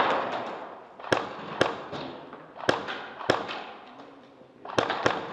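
Airsoft guns firing single shots: about six sharp cracks at irregular intervals, two of them close together near the end.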